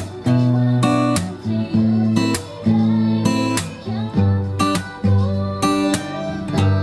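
Acoustic guitar strumming chords: sharp strokes at an uneven rhythm, with the notes ringing on between them.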